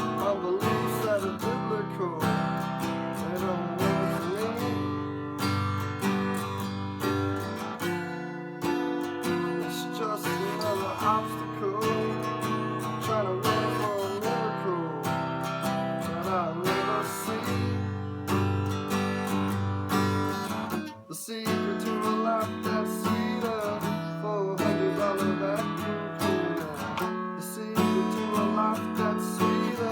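Strummed acoustic guitar playing a song, with a brief break about two-thirds of the way through.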